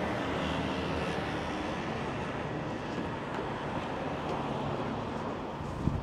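Steady rumble of street traffic, vehicles running past at an even level.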